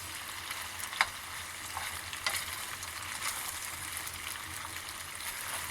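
Pasta and meat sizzling steadily in a frying pan, with a couple of faint clicks of the utensil as it is stirred.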